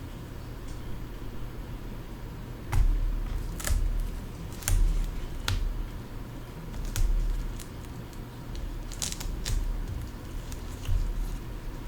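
Scattered small clicks and taps of hand tools and fingers working on a tablet's home button, with dull bumps of handling on the bench, about a dozen irregular strokes in all.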